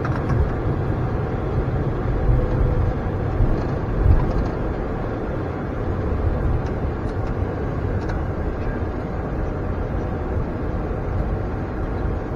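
Steady cockpit noise of an Embraer E175 taxiing on the ground: a low rumble with hiss from the aircraft rolling and its systems running. There are a few low thumps in the first four seconds.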